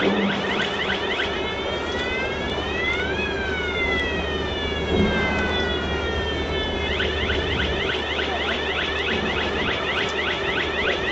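Electronic warning siren sounding a fast repeating yelp. About 1.5 s in it switches to one slow wail that rises to a peak about 3 s in and falls away, then returns to the fast yelp about 7 s in, over a steady low machine hum.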